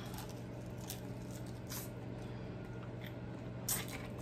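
Wet mouth sounds of fingers being sucked and licked clean of buffalo wing sauce: a few scattered smacks and clicks, the loudest about three and a half seconds in.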